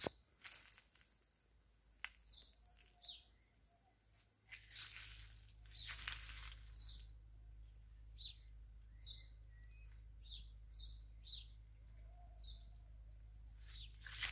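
Small birds chirping in short falling calls, repeated every second or so, over a high, thin trill that starts and stops in stretches. A few brief rustles of leaves brushing past.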